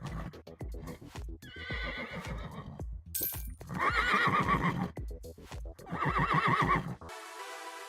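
Horse whinnying twice, loud quavering calls about four and six seconds in, over electronic music with a steady beat. Near the end the beat stops and the music turns to a held synth chord.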